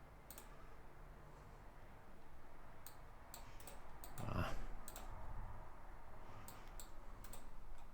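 Scattered sharp key or button clicks in small irregular clusters while a phone number is redialled, with one brief, duller, louder sound about four seconds in.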